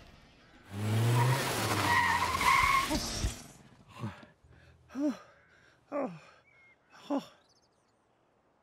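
A car skids to a stop with a loud tyre squeal over its engine, lasting about two and a half seconds. Then a man pants: four short gasps with falling pitch, about a second apart.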